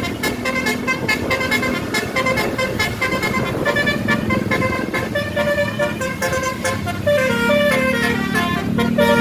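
Bus telolet horn playing a fast melody of stepped horn notes, with runs of falling and rising notes. About seven seconds in, a low steady horn tone joins beneath them.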